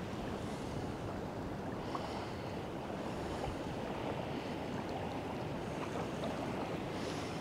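Steady wind buffeting the microphone, with small waves lapping at a lake's edge.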